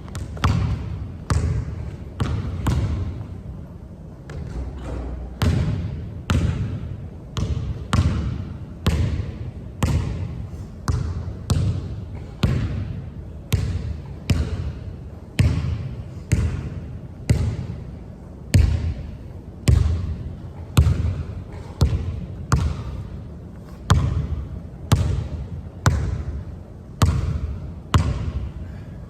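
A basketball dribbled over and over on a hard court, about one bounce a second, each bounce a sharp smack that fades away.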